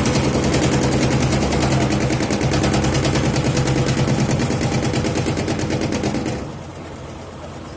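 Electrolux washing machine running with a loud, rapid rattling knock over its motor hum. The knock is a loose internal hose beating against the machine because its retaining clip has come off. The rattling stops abruptly about six and a half seconds in, leaving a quieter hum.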